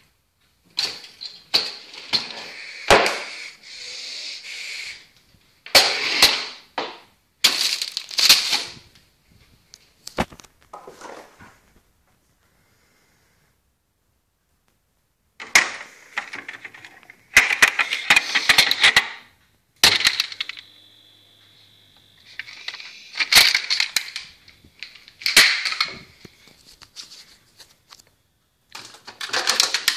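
Food packages and containers handled roughly in an open fridge: spells of plastic crinkling and rustling broken by sharp knocks and clatters, with a pause of a few seconds midway.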